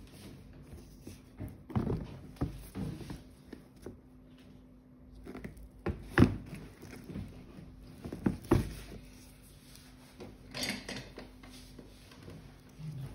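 Handling noise from leather high-top sneakers being lifted and shifted in their cardboard box: scattered knocks and rustles, the sharpest knocks about six and eight and a half seconds in.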